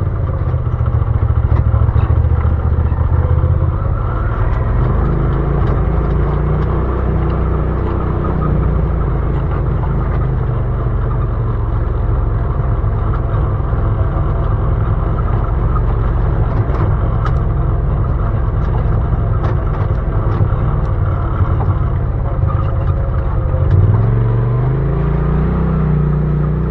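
Side-by-side UTV engine running under load on an off-road trail, its revs rising and falling and climbing sharply near the end, with scattered clicks and rattles over the engine noise.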